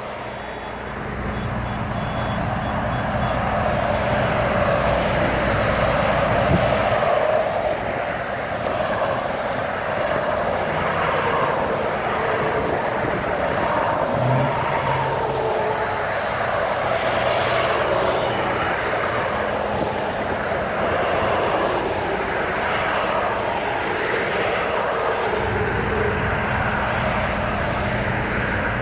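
Motorcade vehicles driving past: a steady rush of engine noise that swells and eases, with a low engine hum in the first few seconds and again near the end.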